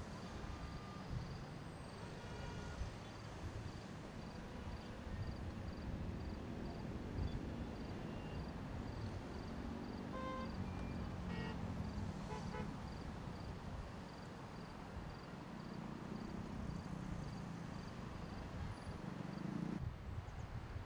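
Distant city street traffic with a steady low rumble, car horns tooting briefly about halfway through, and a faint high beep repeating about twice a second.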